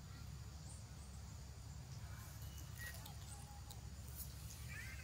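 Steady low outdoor rumble with a few faint, brief high-pitched animal squeaks, one about three seconds in and a short cluster near the end.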